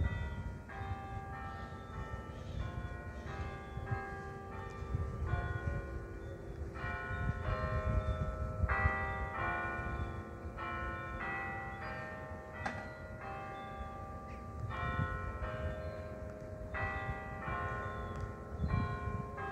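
Church bells of Santa Maria Annunziata ringing a melody, one bell strike after another about every half second to second, each at a different pitch and ringing on into the next, with a low rumble underneath.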